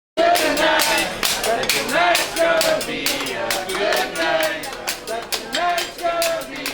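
Music with a quick, steady beat of sharp clicks and a melody, cutting in suddenly from dead silence at the very start.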